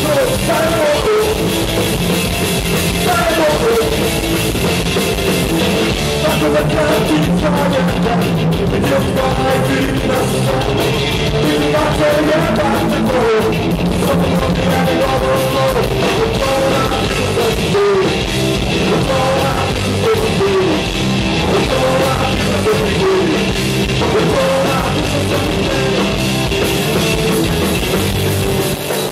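Live punk rock band playing loud and steadily: electric guitars, bass and drum kit, with a singing voice over them.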